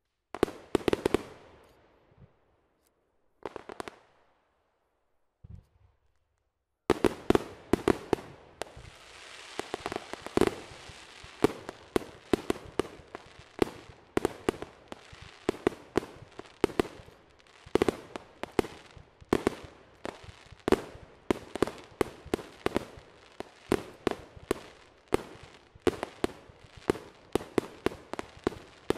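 Aerial fireworks bursting overhead. A few scattered bangs come first, then from about seven seconds in a rapid, unbroken series of bangs with crackling hiss between them.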